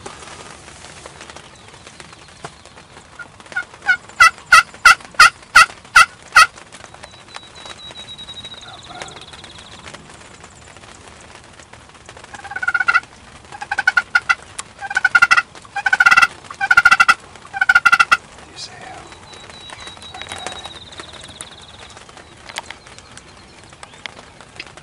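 Two loud series of turkey yelps: about eight evenly spaced sharp notes starting about four seconds in, then a longer, rougher run of notes from about twelve to eighteen seconds in.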